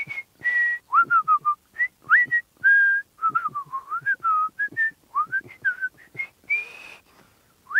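A man whistling a tune through pursed lips: a run of short notes that slide up and down in pitch, with breathy air between them.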